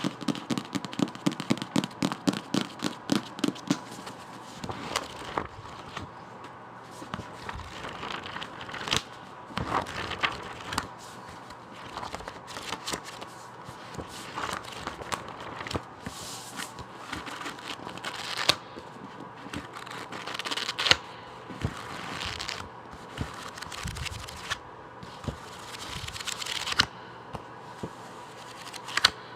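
Fingers tapping on a book in a quick, even run of about five taps a second. Then scattered taps, scratches and paper rustling as the book is handled.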